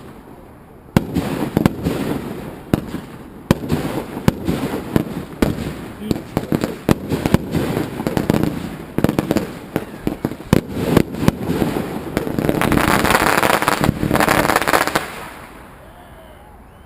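Consumer fireworks going off: a rapid, irregular series of sharp bangs and pops begins about a second in. Near the end comes a dense crackling burst that fades away.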